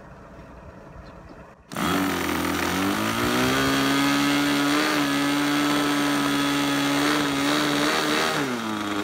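An O.S. 46 two-stroke glow engine on an RC model airplane starting under an electric starter about two seconds in, its pitch rising quickly as it catches. It then runs steadily at high speed, and near the end settles to a lower steady pitch.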